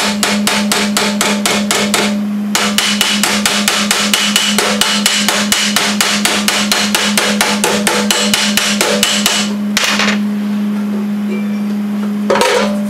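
Body hammer rapidly striking a welded patch in a 1935 Ford truck firewall's sheet steel held over a steel block, about five or six light blows a second: a short run, a brief pause, then a longer run that stops about ten seconds in. The weld is being planished to stretch the shrunken metal back out.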